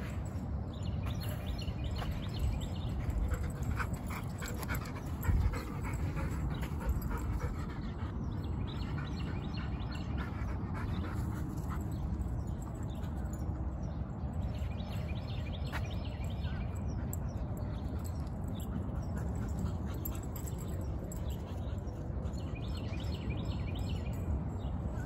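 A dog making high, pitched vocal sounds in several short spells, over a steady low rumble.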